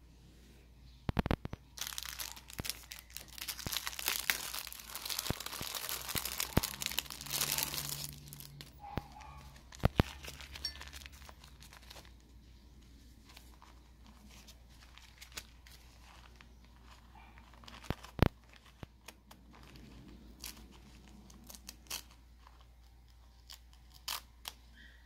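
Plastic wrapper of a drip coffee filter bag crinkling and tearing for about six seconds, then scattered clicks and rustles of the paper filter bag being handled, with sharp snaps about 10 and 18 seconds in, and its top being torn open near the end.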